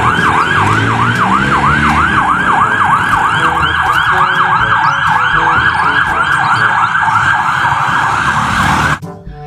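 Ambulance siren in a fast yelp, its pitch sweeping up and down about three to four times a second. It cuts off suddenly near the end.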